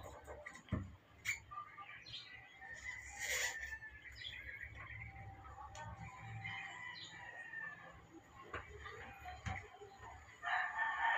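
Knife slicing through tyre rubber by hand, with bird calls in the background and one long pitched call near the end.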